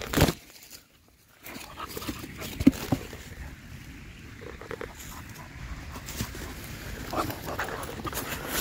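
A dog snuffling and sniffing right at the microphone, mixed with bumps and rustling as the camera is handled. There is a loud knock at the very start, a brief near-silent gap about a second in, and a sharp knock about two and a half seconds in.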